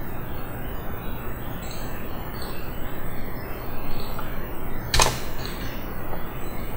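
Steady background hiss with a low hum, and a single sharp computer-mouse click about five seconds in.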